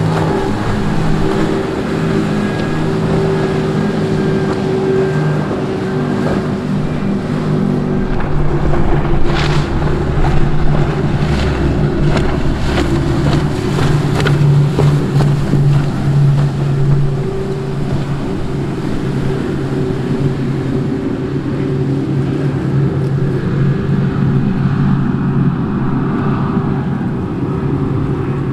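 Outboard motors on fishing boats running at speed, a steady engine drone that shifts in pitch as different boats pass, over the rush of spray and wind on the microphone. A few short sharp cracks come about a third of the way in.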